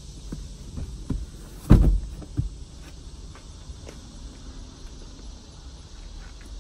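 A Chevy Trax's front passenger seatback is folded forward flat. There are a few light clicks and knocks, then one loud thud about two seconds in as it lands, and a smaller knock just after.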